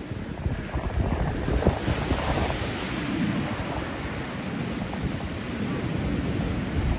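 Surf breaking and washing up a sandy beach, its hiss swelling about two seconds in, with wind buffeting the microphone.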